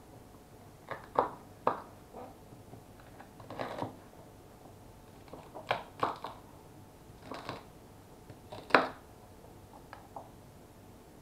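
Kitchen knife cutting celery stalks into large pieces on a wooden cutting board: about a dozen sharp, irregular knocks of the blade through the stalk onto the board, the loudest about nine seconds in.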